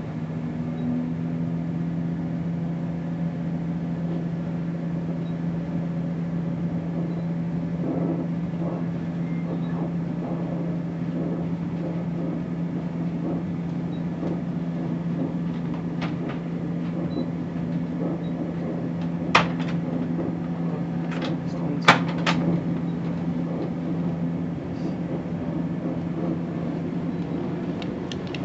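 Steady drone of a Chiltern Railways Class 168 diesel multiple unit heard from inside the carriage, its underfloor diesel engine giving a constant low hum. A few sharp knocks or clicks come about two-thirds of the way through, and the engine drone eases off near the end.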